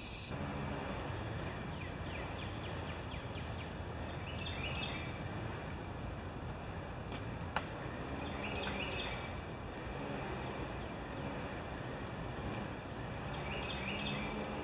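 Backyard outdoor ambience: a steady low rumble with a bird repeating a short chirped phrase about every four to five seconds. A low hum swells and fades three times, and there is a single sharp click about halfway through.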